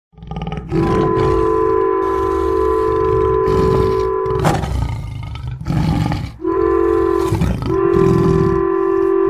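Train horn blowing over the low rumble of a moving train: one long blast, a short gap, then a short blast and another long one.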